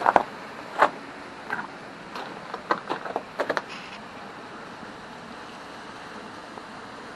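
Footsteps crunching on snow and ice in boots fitted with ice cleats: several uneven steps over the first few seconds, then they stop. A steady rushing hiss runs underneath.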